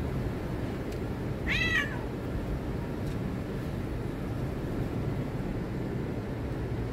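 A cat meows once, a short call arching downward in pitch, about a second and a half in, over a steady low rumble of background noise.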